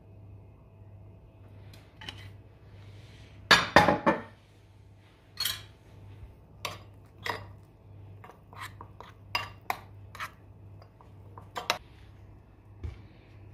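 Spoon clinking against a ceramic bowl while stirring a seasoned tomato mixture: a burst of loud clinks about three and a half seconds in, then scattered single clinks every second or so.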